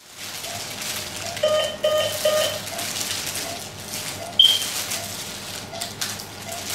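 Title-sequence sound effects: a steady hissing, crackling texture with three short electronic beeps about a second and a half in, then a single bright ping about four seconds in.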